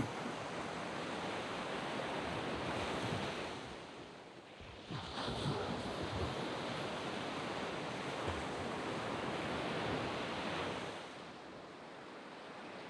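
Surf breaking and washing up a sandy beach, a steady rush that eases about four seconds in, swells again as a fresh wave breaks about five seconds in, and eases once more near the end.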